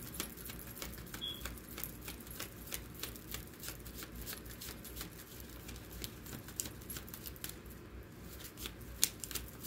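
Faint, irregular light clicks and ticks from hands handling small objects close to the microphone, with a sharper click about nine seconds in.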